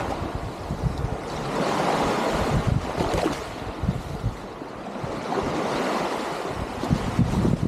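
Small Baltic Sea waves washing and breaking onto a sandy shore, swelling and easing, with wind buffeting the microphone.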